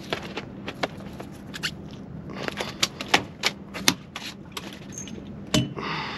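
Close-up sharp clicks and taps of an angler handling a caught sole and the hook and bait of his fishing rig, most of them in a quick run in the middle and one loud tap near the end, over a low steady hum.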